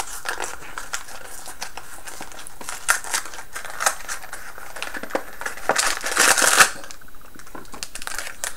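Snack wrapper crinkling and rustling as it is unwrapped by hand, in irregular crackles, loudest about six seconds in.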